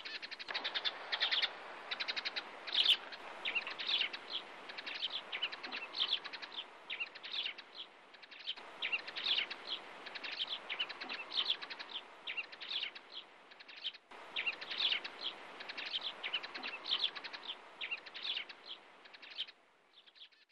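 A flock of small birds chirping and twittering continuously, many quick high chirps overlapping, which stop shortly before the end.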